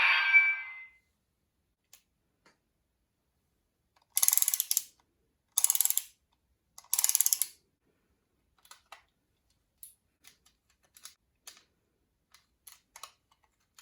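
Three short rasping scrapes about a second and a half apart, then scattered light clicks and taps: a folded-paper toy being handled and its parts shifted. A louder noisy sound dies away within the first second.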